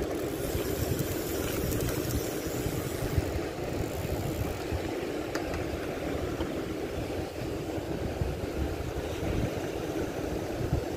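Steady wind rumble on the phone's microphone over the wash of sea waves breaking on the shore reef.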